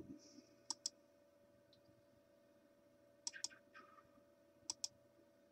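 Computer mouse clicking: three quick pairs of sharp clicks, spread over a few seconds, above a faint steady hum.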